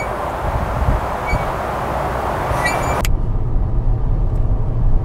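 Ford Mondeo cabin noise on the move: a loud rushing road and wind noise with a few short high tones, which changes sharply about three seconds in to a lower, steadier engine and tyre drone.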